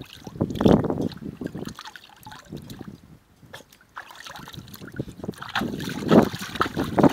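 Water splashing and sloshing in a shallow inflatable paddling pool as a Border Terrier puppy snaps at water splashed by a hand. Bursts of splashing about a second in and again near the end, quieter in between.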